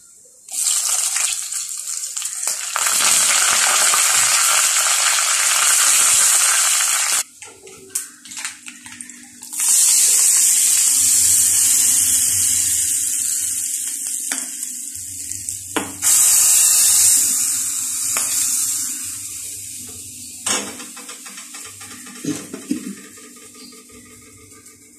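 Hot oil tempering (tadka) with urad dal, chilli and curry leaves sizzling, in three loud bursts that each start suddenly and die down slowly. Near the end a few light clicks of a spoon stirring the chutney in a ceramic bowl.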